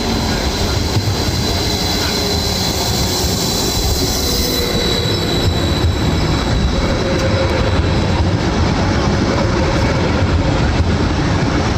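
Stadler FLIRT electric multiple unit rolling into the platform and passing close by, a steady loud rumble of wheels on rail. A high, thin squeal is held through the first half, and a lower whine comes in after it as the train slows.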